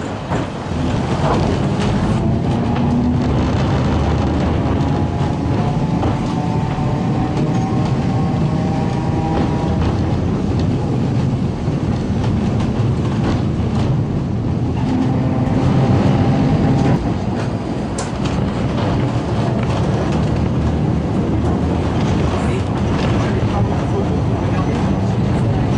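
Heritage electric tram running, heard from on board: a steady rumble of the wheels on the rails, with a whine that comes and goes twice.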